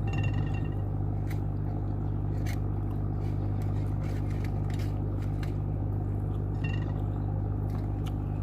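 A steady low machine hum, with scattered small clicks and crunches of someone eating chicken feet.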